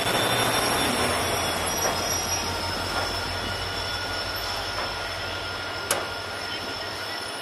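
Diesel-hauled Indian Railways express passenger train rolling slowly past on arrival: the locomotive's low engine rumble fades as the coaches follow, over a steady high-pitched wheel squeal and the rumble of the coaches. A single sharp click about six seconds in.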